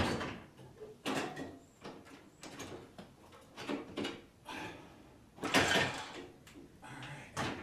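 Metal clanks and rattles from the garage door opener's rail-end hardware being worked loose by hand, along with the steel door panels. There are a string of separate knocks, and the loudest clatter comes about two-thirds of the way through.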